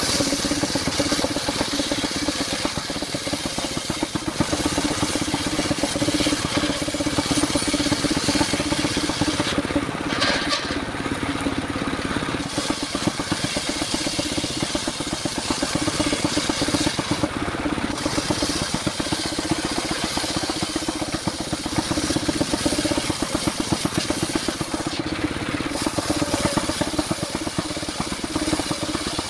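28 hp diesel engine running steadily under load, driving a mobile circular sawmill's saw blade as it cuts lengthwise through a log.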